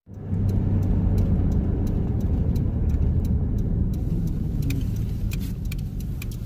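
Van driving on a snowy dirt forest road: a steady low rumble of engine and tyres, with scattered light clicks and crackles throughout.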